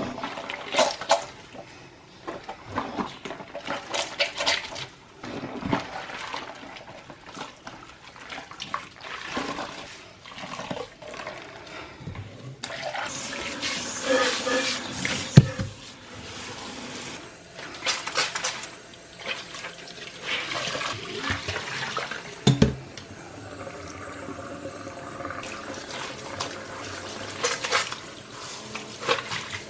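Water from a kitchen tap running and splashing in the sink as a dish towel is washed by hand, starting and stopping several times. Short knocks and clinks come between the stretches of water, with a sharper knock about midway and another a few seconds later.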